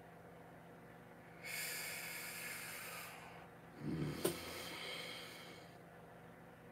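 A man's breathing through his nose: a long breath, a short snort with a click about four seconds in, then another long breath.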